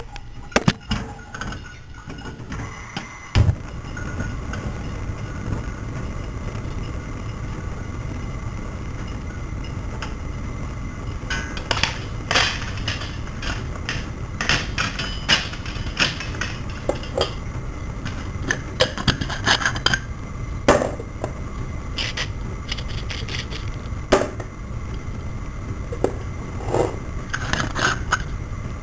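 Kitchen noises: dishes, pots and cutlery clinking, knocking and scraping at irregular intervals over a steady low hum that sets in a few seconds in.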